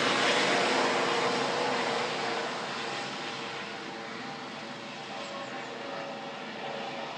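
Rescue helicopter flying away after take-off: steady rotor and turbine noise that fades over the first few seconds, then holds faint as it recedes.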